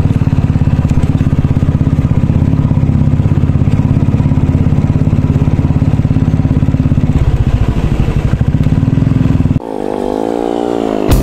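Motorcycle engine running steadily while riding a dirt road, with a fast, even pulse. About nine and a half seconds in it cuts off abruptly, replaced by a quieter sound with a wavering pitch.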